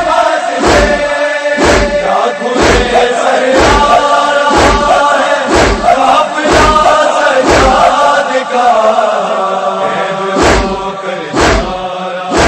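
Mourners beating their chests in unison (matam), sharp strikes about once a second, under a chanted noha lament.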